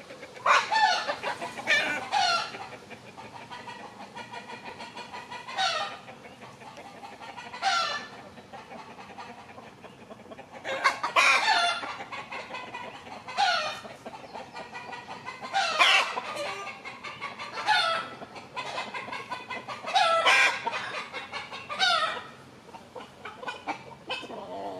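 Free-range chickens, hens and a rooster, calling repeatedly, with a loud call every couple of seconds.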